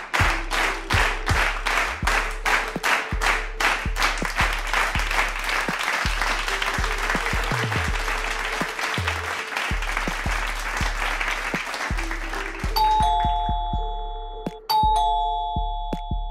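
Background music with a fast steady beat, about four beats a second at first. Near the end a two-tone doorbell chime rings twice, about two seconds apart.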